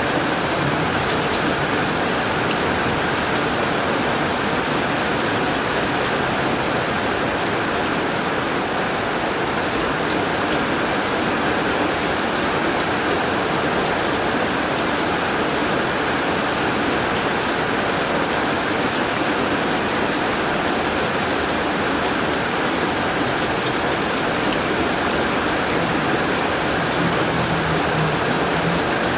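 Heavy rain falling steadily on a tin roof: a dense, even hiss of drops with scattered sharper ticks of single drops hitting the metal.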